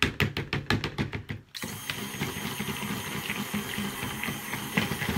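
Handheld stick blender mixing coloured cold-process soap batter in a plastic cup. First comes a quick run of sharp clicks, then from about a second and a half in the motor runs steadily.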